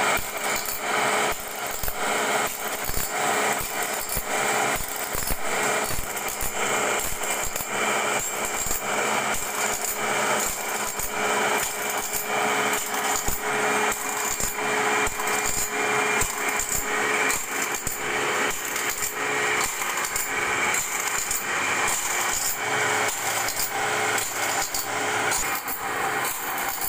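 Automatic band saw blade sharpening machine running: a motor-driven abrasive wheel grinds the blade's teeth one after another with a steady grinding hum. A regular clack comes from the spring-loaded feed arm as it steps the blade on to the next tooth.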